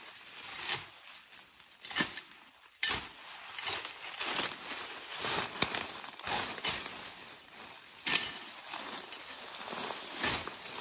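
A small spade hacking through dense thorny brush: irregular chops and swishes among rustling leaves and stems, with a few sharper strikes standing out.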